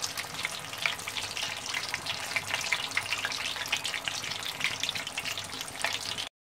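Samosas deep-frying in medium-hot oil in a pan, with a steady, dense sizzle and crackle of bubbling oil as they finish crisping. It cuts off suddenly near the end.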